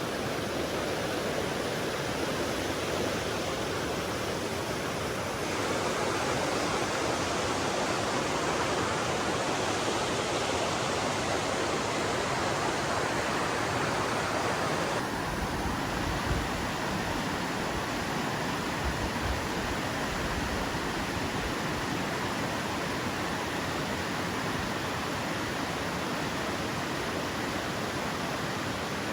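A high, fast-flowing mountain creek rushing steadily over rocks. Its tone shifts abruptly twice, and there are a few low bumps partway through.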